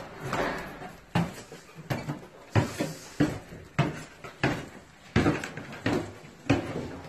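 Footsteps going down bare wooden stairs, the carpet stripped off the treads. The steps come as a steady series of hollow knocks, about three every two seconds, and carry on onto a bare wooden floor near the end.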